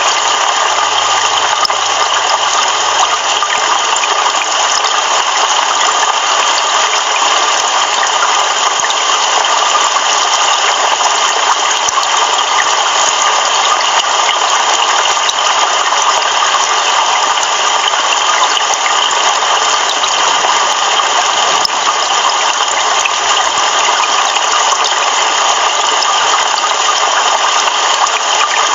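Heavy rain pouring steadily, an even hiss with no thunder.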